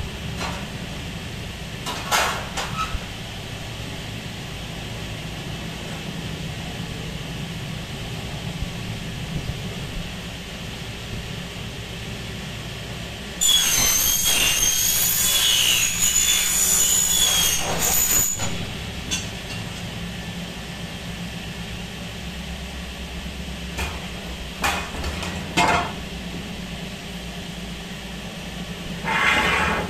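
A power saw cutting aluminium window profile: a high-pitched, wavering screech that starts suddenly about halfway through and lasts four to five seconds, over a steady low hum. A few short knocks come before and after the cut.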